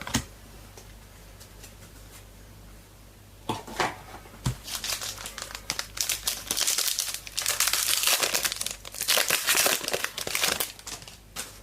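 Trading card pack wrapper being torn open and crinkled by hand, starting about three and a half seconds in and growing busier and louder, then stopping near the end.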